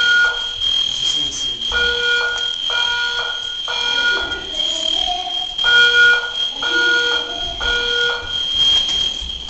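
Dormitory fire alarm system sounding its evacuation signal: groups of three loud horn tones, about four seconds from one group to the next, over a steady high-pitched tone. This is the temporal-three pattern that calls for evacuating the building.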